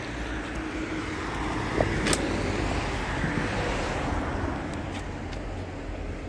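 A motor vehicle passing on a road, its noise swelling and then fading, with a short sharp click about two seconds in.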